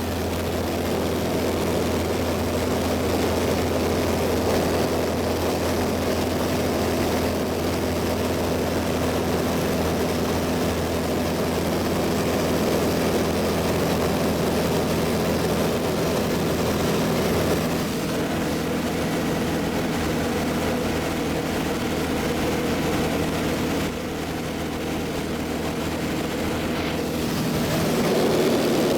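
Propeller airplane engine droning steadily, heard from inside the cabin in flight, with a slight change in its tone about two-thirds of the way in.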